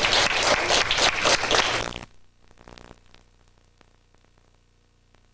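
Audience applauding, a dense clatter of many hands clapping that cuts off abruptly about two seconds in.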